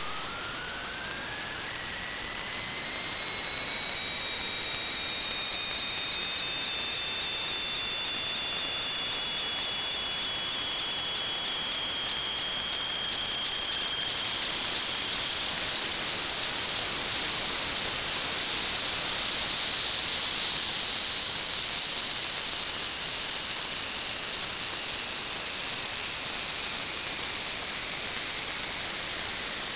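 Steady hiss with high whistling tones that slowly drift in pitch, typical of pressurized flow forced through a pipe or valve. Partway through, the whistle flutters and wavers, then settles into one steady high tone.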